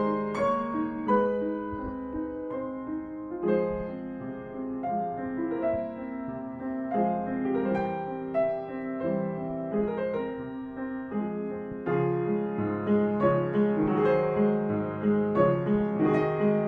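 Background piano music: a slow melody of single notes over held low chords, a little louder in the last few seconds.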